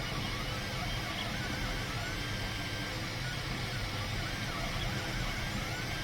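Bambu Lab X1 Carbon 3D printer running while it prints the skirt: a steady fan hum under short stepper-motor whines that glide up and down in pitch as the print head moves.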